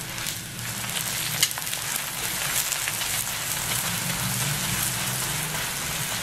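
Lachha paratha sizzling in ghee on a hot iron tawa: a steady frying hiss, with one light metal click about one and a half seconds in.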